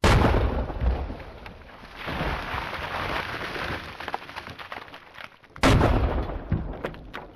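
Two loud shotgun blasts about five and a half seconds apart, the first cutting in suddenly out of silence, with a rushing noise between them as the plastic bucket target is blown apart.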